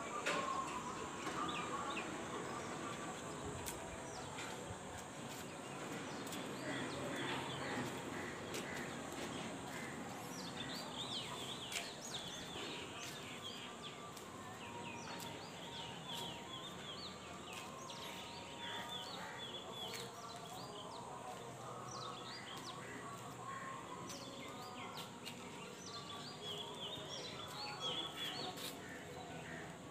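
Many small birds chirping in quick short calls, thickest from about ten seconds in, over a steady background of distant outdoor noise.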